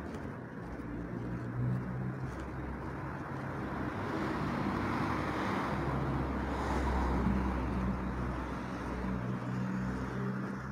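A car passing by on the street: tyre and engine noise swells about four seconds in, is loudest a couple of seconds later, then fades, over a steady low hum.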